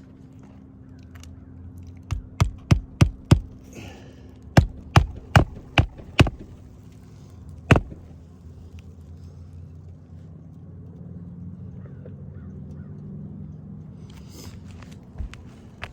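Hammer blows during roof shingle repair work: two quick runs of five and six sharp strikes, about three a second, then a single strike. A low steady hum runs underneath.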